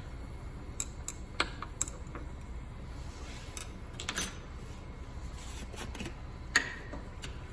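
A glass stirring rod tapping and clinking against the inside of a glass beaker of solution, several light clinks in the first two seconds. A louder knock follows about four seconds in, and a sharp glassy click with a short ring comes near the end.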